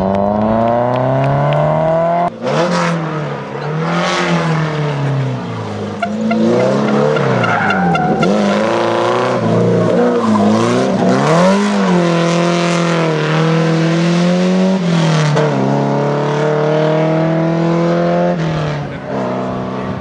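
Rally cars, a BMW E30 3 Series and a Mercedes 190E, driven hard on the stage. The engine pitch climbs under full throttle and drops at each gear change, with off-throttle dips into corners and several long rising pulls.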